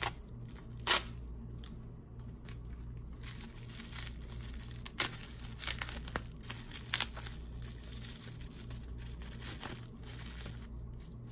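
Packaging being torn open and crinkled by hand: scattered sharp crackles, the loudest near the start and about a second in, over a steady low hum.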